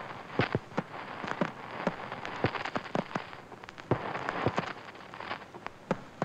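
Crackle of scratched, dusty film: irregular sharp pops and clicks, a few a second and uneven in strength, over a steady hiss.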